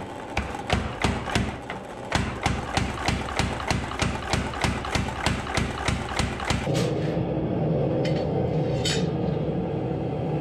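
Power hammer pounding a red-hot 52100 steel knife blank in quick, even blows, about five a second. The blows stop about two-thirds of the way through, leaving a steady machine hum and a couple of light clinks.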